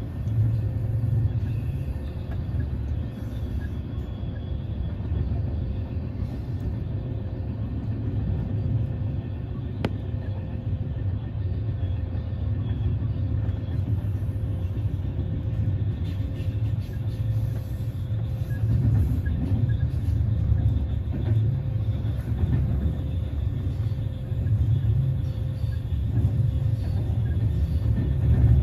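Trenitalia Intercity Notte sleeper carriage running on the rails: a steady low rumble with a faint steady hum above it. A single sharp click comes about ten seconds in.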